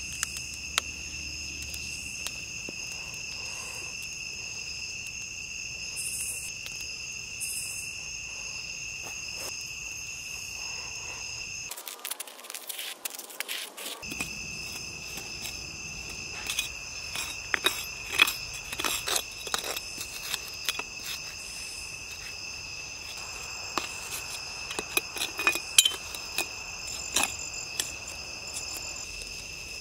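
Insects trilling steadily in high, even tones, breaking off for about two seconds near the middle. Through the second half, a metal shovel scrapes and knocks as it digs soil away from a buried aluminum cast, in quick sharp strokes.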